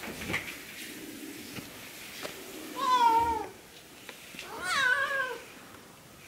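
A Siamese cat gives two loud, drawn-out meows a little under two seconds apart. The first falls in pitch; the second rises and then falls.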